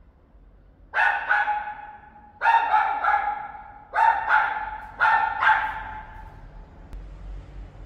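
One dog barking fiercely in short runs of two or three quick barks, four runs in all starting about a second in. It is the barking of a dog newly moved into the flat, which its owner puts down to the dog not yet being used to its new home.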